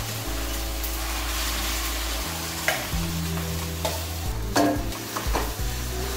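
Mashed potatoes sizzling in hot oil tempered with mustard seeds, cumin, asafoetida and fennel in an aluminium kadhai. A steel spoon scrapes them out of a steel bowl and stirs them, clinking on the metal several times in the second half.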